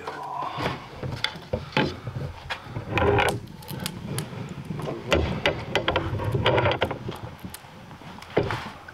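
Irregular light clicks, taps and scraping on wood: a folding ruler being handled against a hewn log and a pencil drawing marking lines on it.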